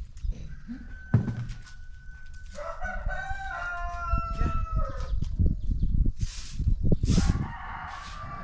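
A rooster crowing twice: a long crow that slides down in pitch at its end, then a second crow near the end. Underneath are low rustling and knocks, with a sharp thump about a second in.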